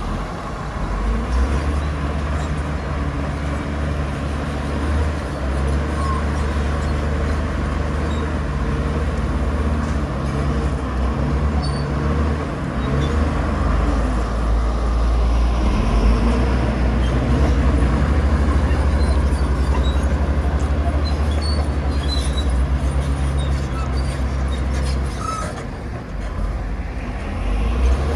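Bulldozer's diesel engine running under load with a steady low drone. It eases briefly near the end, then picks up again.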